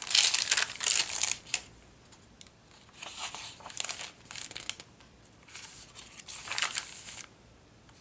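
Paper rustling and crinkling as the crinkled pages of a handmade junk journal are handled and turned: a loud rustle in the first second and a half, then softer rustles of the following page turns.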